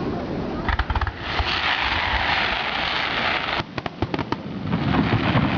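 Fireworks going off: a quick string of sharp bangs about a second in, then a long hissing crackle, then a few more sharp cracks past the middle.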